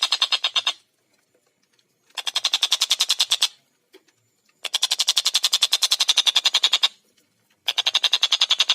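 Tengkek buto kingfisher calling in loud, rapid rattling runs of sharp notes, about fifteen a second, in four bouts broken by short pauses of about a second.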